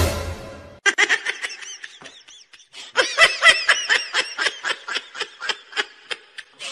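High-pitched laughter in quick, even bursts of about four or five a second, tailing off near the end, after a sharp hit at the very start.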